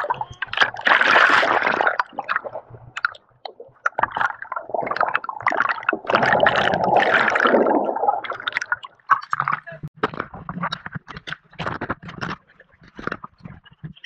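River water splashing and sloshing around a raft in two long surges, followed by a run of short, sharp splashes and knocks.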